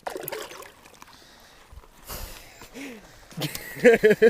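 A voice exclaiming in short untranscribed calls, loudest near the end, with a brief hiss about two seconds in.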